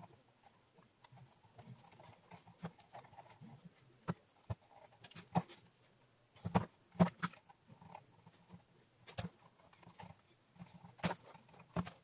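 Scattered light clicks and taps from tweezers and fingers handling a plastic microwave front panel fitted with wired tactile micro switches. A cluster of louder taps comes about six and a half to seven seconds in, and two more near the end.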